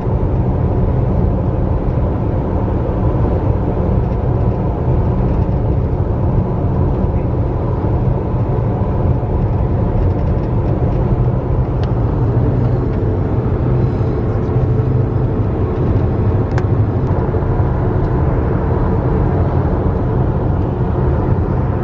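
Steady road noise inside a moving car: tyre rumble and engine drone at cruising speed on the highway.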